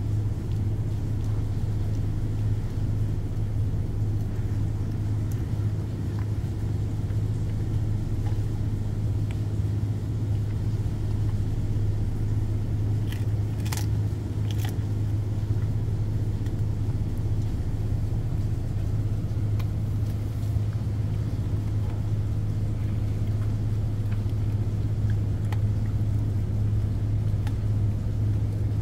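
Steady low hum of a ship's machinery running. A few sharp clicks about halfway through come from a dog chewing.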